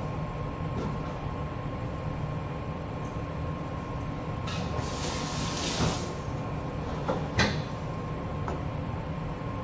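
Steady rumble and hum of a commercial kitchen's ventilation, with a few sharp knocks of a chef's knife on a plastic cutting board: one near the start and two near the end. A brief hissing rush of about a second comes near the middle.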